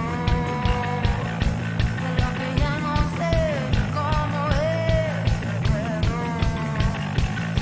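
Live rock band playing with a sung lead vocal over a steady drum beat and heavy bass.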